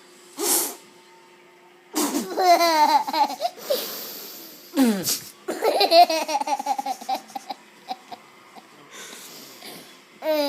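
A young child laughing in rapid, pulsing bursts at mouth-made fart noises, short blown raspberries that come between the laughs.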